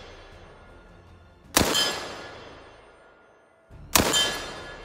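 Two rifle shots from an FN FAL battle rifle in 7.62x51mm (.308 Winchester), fired semi-automatic about two and a half seconds apart, each followed by a long echo dying away.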